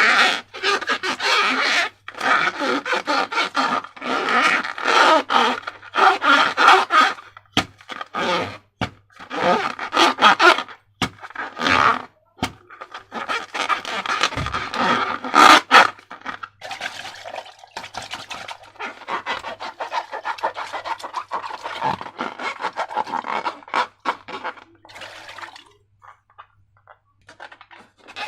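Slime being worked by hand: irregular bursts of squishing and scraping with short pauses, and a few sharp clicks.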